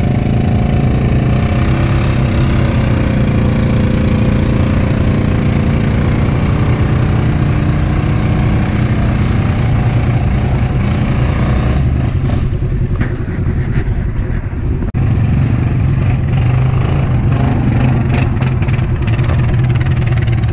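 Four-wheeler ATV engine running under throttle as the ATV is pulled out of deep mud, its tyres spinning and throwing mud, with the towing pickup truck's engine also running.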